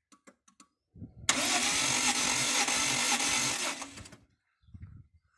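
Toyota 1G-FE inline-six turned over by its starter for about two and a half seconds with a rhythmic pulse, not firing because its spark plugs are out and the crankshaft sensor is unplugged. It is being cranked for a compression test of the sixth cylinder, which reads about 7. A few light clicks come just before.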